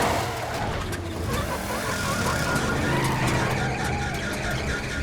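A car driving with its engine running, as a cartoon sound effect.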